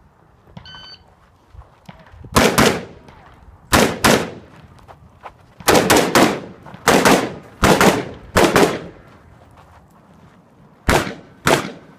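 A shot timer beeps once, then a pistol fires about fifteen shots, many in quick pairs with short pauses between the groups, as a shooter works through a practical-shooting stage.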